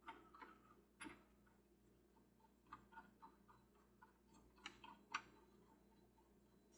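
Faint, irregular small clicks and ticks of a screwdriver and screws being worked out of a plastic Ferris wheel hub, with the clearest clicks about a second in and again near the end.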